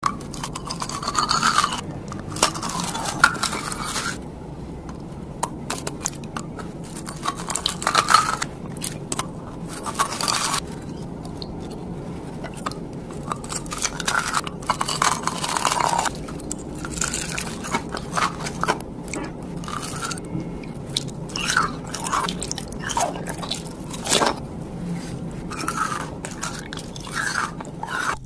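Biting and chewing of gem-shaped crystal candy: its brittle sugar crust gives crisp crunches and crackles that come in irregular bursts, with the chewing going on between bites.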